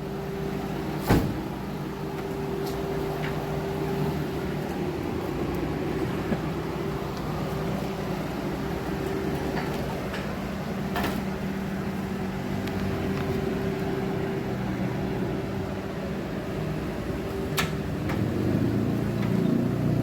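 A vehicle engine idles steadily with an even hum. A few sharp clicks or knocks sound over it.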